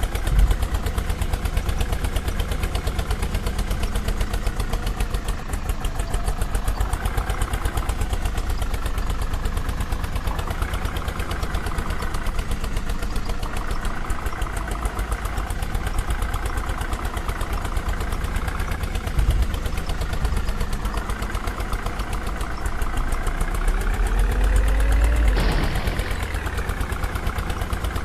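Vehicle engine idling with a steady rapid pulse, revving up for a couple of seconds a few seconds before the end, then dropping back to idle.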